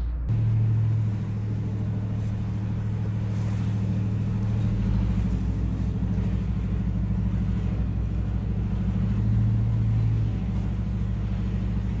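Pickup truck engine heard from inside the cab, working under load to pull a trailer of heavy hay bales across a slick field: a steady low drone that rises about a third of a second in and stays strong.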